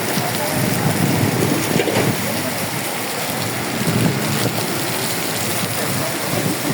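Rain pouring down, a loud, dense, steady wash of rain noise.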